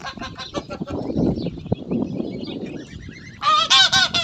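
Chickens clucking in a wooden coop, with a loud burst of rapid, high squawking calls starting about three and a half seconds in.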